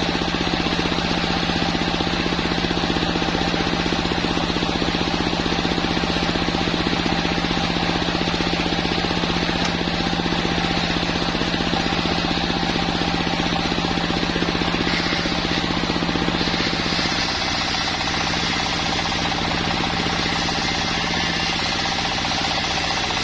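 Sawmill machine running with a steady hum; about two-thirds of the way through, its tone shifts and it gets slightly quieter.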